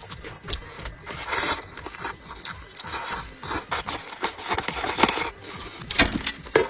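Close-miked mukbang eating sounds: irregular chewing, crunching and smacking of food, with small scrapes and clicks, the loudest strokes about a second and a half in, near five seconds and near six seconds in.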